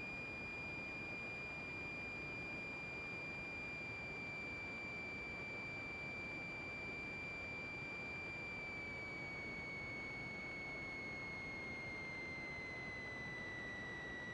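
A steady high-pitched electrical whine over hiss in the aircraft's intercom audio feed. It slides a little lower in pitch in the last third.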